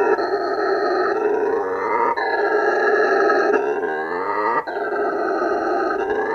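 Howler monkey roaring: a loud, continuous rasping roar that rises and falls in pitch, with short breaks about two and four and a half seconds in.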